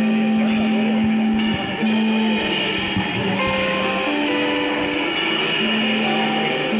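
Emo/indie rock band playing live: electric guitars and bass guitar holding sustained notes over a drum kit, with cymbal hits recurring throughout.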